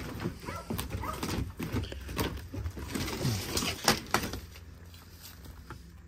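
Knocks and clatter of rummaging through a pile of junk: old boards, dishes and metal shifted and lifted out by hand, with a few short falling voice-like sounds mixed in. The knocking dies away after about four and a half seconds.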